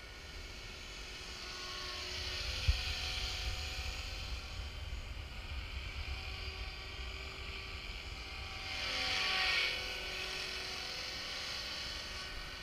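T-Rex 450 electric RC helicopter flying, its motor and rotor giving a steady multi-tone whine that swells louder about nine seconds in and falls in pitch as it passes close. A low rumble runs under it, with one sharp thump about three seconds in.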